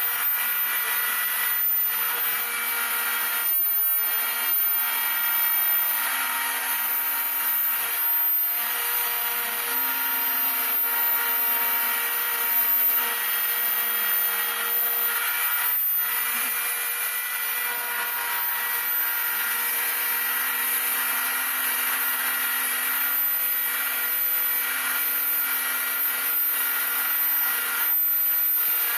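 Homemade CNC router milling model-airplane wing ribs: the spindle runs with a steady whine while the cutter works through the stock, and a lower tone starts, stops and shifts pitch every few seconds as the machine moves.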